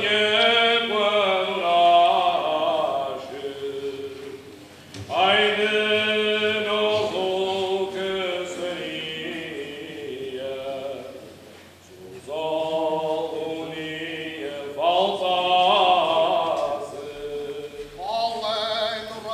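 Cante alentejano: a men's choral group singing a traditional Alentejo song unaccompanied, in slow, drawn-out phrases with short breaks between them.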